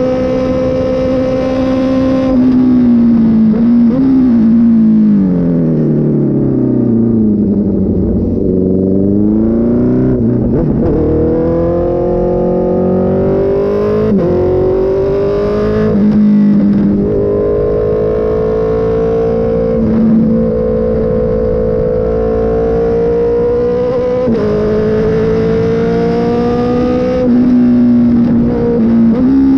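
Honda CB650 air-cooled inline-four engine running under load. The revs sag for several seconds, then climb in a series of long pulls, each broken by a sudden drop in pitch before climbing again, as when accelerating up through the gears.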